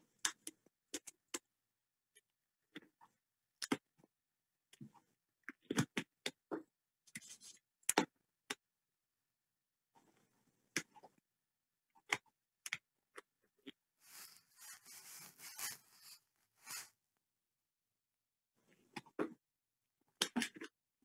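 Metal palette knife working oil paint: scattered light clicks and taps, with a short stretch of scraping about 14 seconds in.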